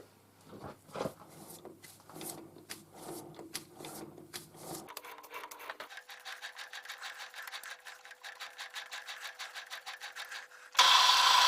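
Rapid, even clicking of a lathe chuck turned by hand while an M4 tap threads an aluminium nut, growing faster and denser about halfway through. Near the end, a loud steady noise starts suddenly.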